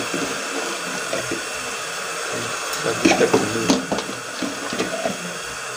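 Goat meat sizzling in a hot steaming metal pot with a steady hiss. About three seconds in, a short run of sharp knocks and scrapes as red masala paste goes into the pot.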